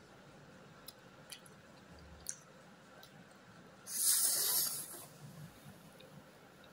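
A person slurping up a mouthful of stir-fried instant noodles: one loud, hissy slurp lasting about a second, starting about four seconds in. A few faint clicks come before it.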